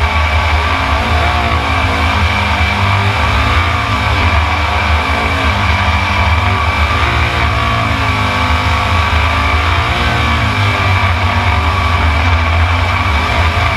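Rock music with guitar laid over a jet sprint boat's twin-turbo 427 cubic inch LS V8 running hard, its pitch rising and falling as the throttle goes in and out through the turns.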